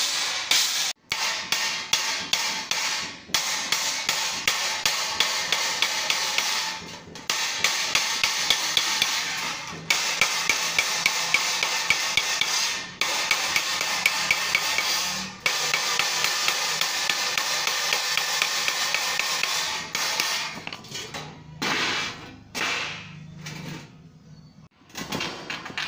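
Hammer striking thin sheet metal laid over a wooden board, bending its edge into a fold for a gutter: quick strikes, several a second, in runs broken by short pauses. The strikes thin out and stop near the end.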